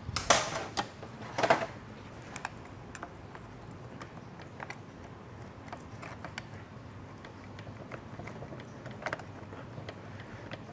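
Hand tools clinking against a metal automatic transmission case on a workbench: two louder metal clanks in the first two seconds, then light scattered ticks and taps as the tool works on the case.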